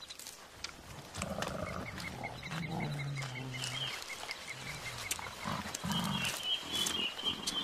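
Young mountain gorillas giving low grunts and a drawn-out low hum, with light clicks and rustles of movement through grass.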